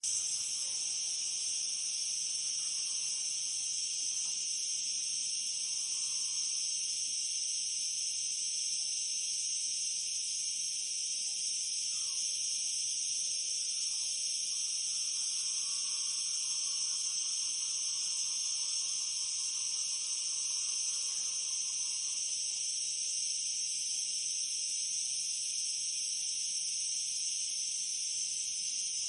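Cicadas buzzing in a continuous high, steady drone that never lets up.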